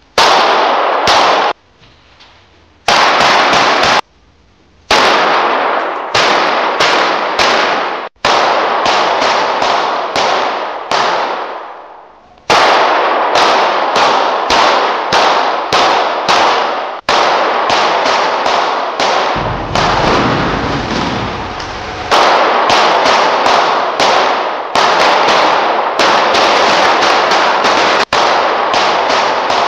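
Gunfire: many sharp shots in quick runs, each trailing off with a ringing tail, broken by short pauses in the first few seconds.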